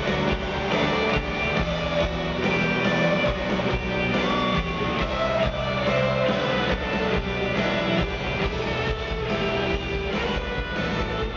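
Live rock band playing, with strummed acoustic guitar and electric guitar over a steady drum beat, heard from within the concert crowd.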